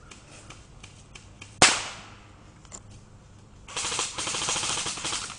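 Airsoft guns firing: faint scattered shots, one loud sharp crack about a second and a half in, then a burst of rapid automatic fire lasting about a second and a half near the end.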